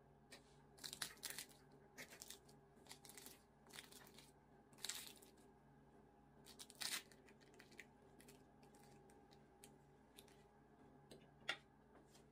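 Fork pressing into crisp walnut baklava, its phyllo layers crackling and crunching in short, irregular bursts, a sharp crunch near the end.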